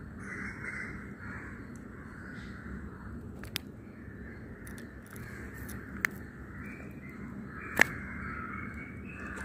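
Crows cawing and other birds calling in a continuous background chatter, with three sharp clicks, about three and a half, six and nearly eight seconds in, the last the loudest.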